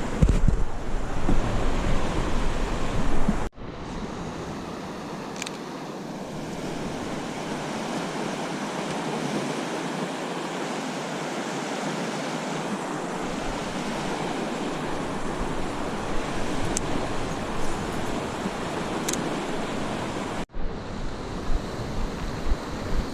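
Steady, even rushing of river water. It breaks off abruptly about three and a half seconds in and again near the end, with a rumble of wind on the microphone in the first few seconds.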